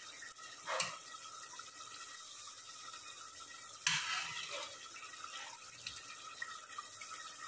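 Boiled black chickpeas tipped from a slotted spoon into a pan of simmering gravy, with liquid splashing and dripping. There are two louder splashes, about a second in and about four seconds in, over a faint steady simmer.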